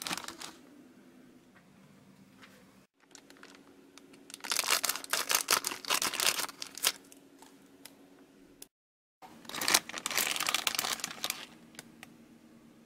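Scissors cutting open a plastic Meigum candy-kit packet, the film crinkling and crackling in two spells of a couple of seconds each. A faint steady hum sits underneath.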